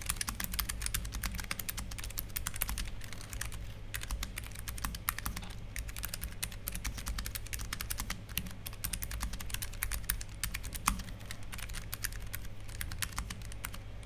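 Continuous fast typing on a Keychron K3 low-profile mechanical keyboard fitted with Keychron low-profile optical brown (tactile) switches: a dense, steady stream of key clicks.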